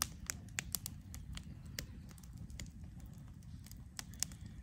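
Wood campfire crackling, with irregular sharp pops and snaps from the burning logs, over a low steady rumble.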